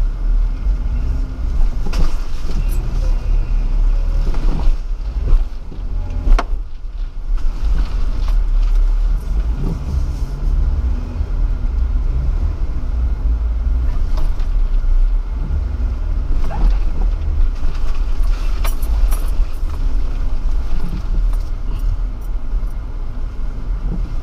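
Jeep driving slowly over a rough off-road trail, heard from inside the cab: a steady low engine and drivetrain rumble with scattered knocks and rattles as it jolts over ruts and debris.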